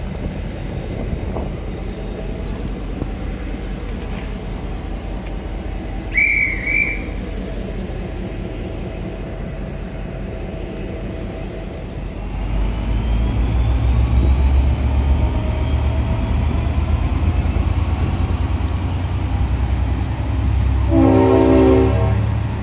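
V/Line passenger train pulling away: a steady rumble with a short shrill whistle about six seconds in. Halfway through the rumble grows louder and a thin whine slowly rises in pitch as the train gathers speed. A horn sounds for about a second and a half near the end.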